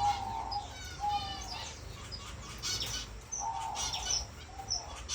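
Owl finches calling in their cages: a few short drawn-out nasal notes and scattered quick high chirps.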